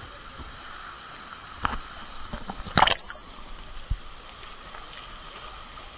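Water splashing and sloshing over a steady rush of water, with a few short sharp splashes, the loudest just before the middle.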